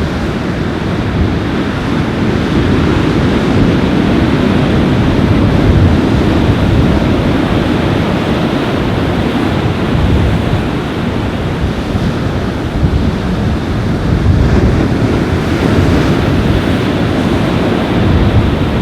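Ocean surf washing onto a beach, with strong wind buffeting the microphone in a heavy, steady low rumble.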